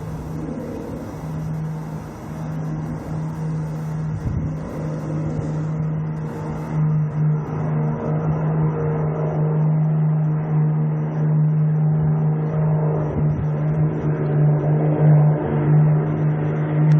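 Airbus A380's jet engines running with a steady low hum under a noisy rush, growing gradually louder.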